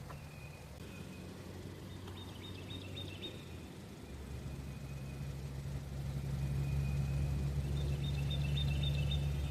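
Hyundai Sonata engine idling, a steady low hum that gets louder about four seconds in.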